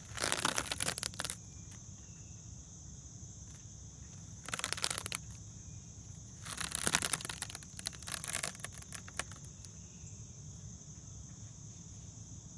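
A steady high-pitched insect chorus, broken by four short bursts of rustling and crackling as a spider egg sac is pulled free of its silk and handled.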